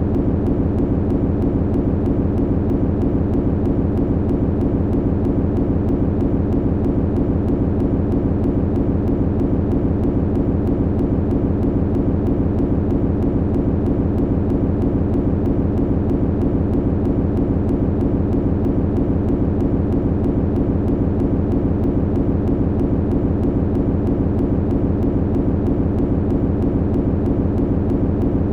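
Steady low hum of running machinery, an even drone that does not change.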